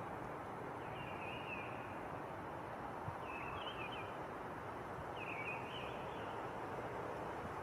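A bird calling in short warbling chirps, three times, about every two seconds, over a steady outdoor background hiss.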